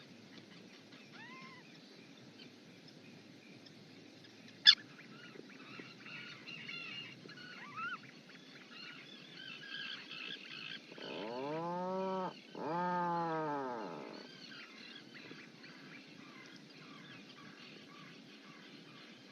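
Two long, low calls from an adult auk, back to back about 11 seconds in, each rising then falling in pitch. Faint high chirps come before them, with one sharp click about 5 seconds in.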